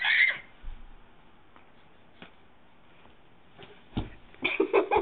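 A young child's short high squeal, then a quiet stretch with a few faint clicks and a soft thump about four seconds in, followed by bursts of giggling near the end.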